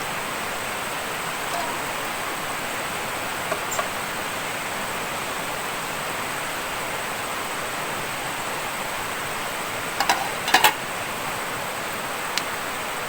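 Steady rushing of water, with a few light clicks and knocks over it, the loudest about ten seconds in.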